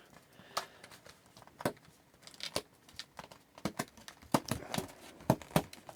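Plastic wrapping on a hockey card hobby box crinkling and tearing as the box is opened and handled, heard as a string of short, sharp crackles and snaps.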